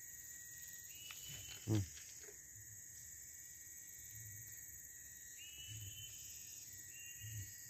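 Insects calling in a steady high-pitched chorus, several overlapping tones that shift in pitch now and then. A short low sound comes just under two seconds in.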